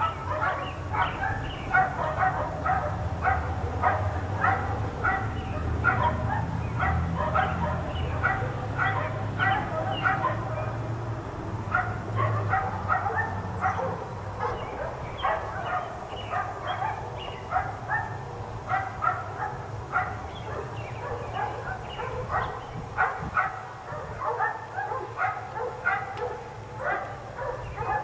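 Dogs barking nonstop in rapid, repeated barks, several a second. A low steady hum runs underneath and fades about halfway through.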